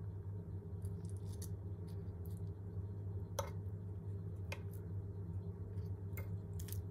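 A metal fork prodding a baked broccoli casserole, its tines giving a few light ticks and then four sharp clicks, the last two close together near the end, as they strike the glass baking dish. A steady low hum runs underneath.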